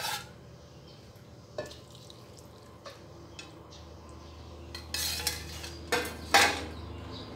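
Metal ladle clinking lightly against an aluminium saucepan a few times, then several louder clanks as the pan is set back down on a gas stove, the last one the loudest.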